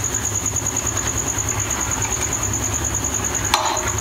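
Large aluminium pot of water at a boil being stirred: a steady low rumble with a constant high-pitched whine. A metal slotted spoon knocks against the pot once near the end.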